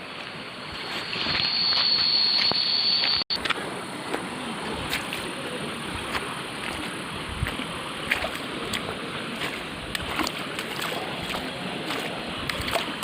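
Waterfall and stream water rushing, a steady rush with scattered small splashes. About a second in, a steady high-pitched whine joins for about two seconds and then cuts off suddenly.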